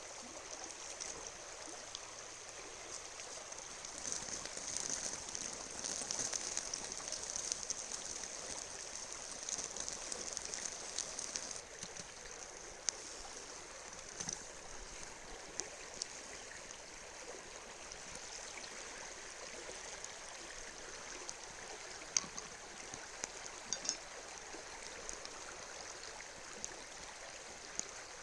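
Steady rush of a flowing river with scattered sharp crackles and pops from a campfire. A louder hiss builds for several seconds and cuts off abruptly about eleven seconds in.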